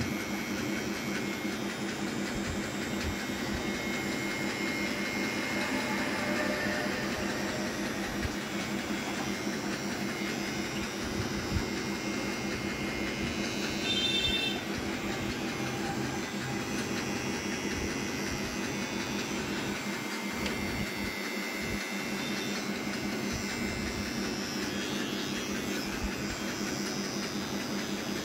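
Cordless T-blade hair trimmer buzzing steadily as it edges a hairline.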